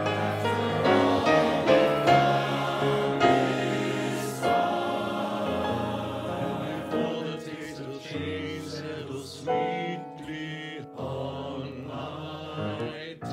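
Virtual men's choir singing sustained chords in many-voiced harmony; the sound thins and grows quieter about halfway through.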